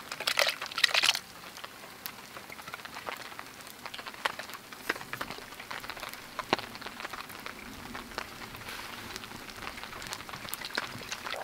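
Rain falling, with many scattered drops ticking sharply against a steady hiss. A brief loud rustling crunch comes in the first second.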